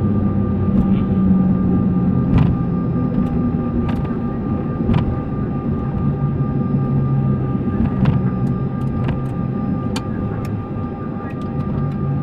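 Cockpit noise of an MD-83 airliner rolling along the runway: a steady hum from its JT8D turbofan engines and cockpit systems, with a low drone and several thin steady tones. Sharp clicks and knocks come at scattered moments throughout.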